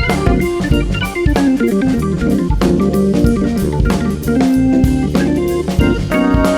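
Live jazz-fusion band playing an instrumental, with drum kit and bass under guitar and keyboard lines.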